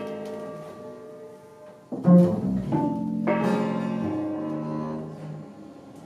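Improvised ensemble music led by bowed cello and double bass holding sustained, overlapping notes. New strokes come in about two seconds in and again a second later, and the sound fades toward the end.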